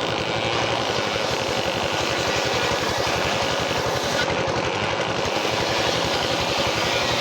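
Sawmill machine running steadily: a continuous engine-like note with a fast, even pulse underneath and a steady hum.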